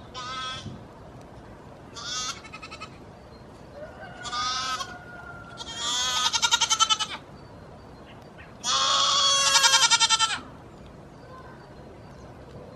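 Goat kids bleating: five separate calls, the last two longer, louder and quavering.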